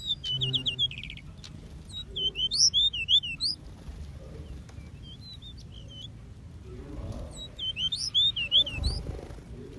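Small aviary birds chirping in short bursts of quick, high twittering notes, three or four bursts with gaps between.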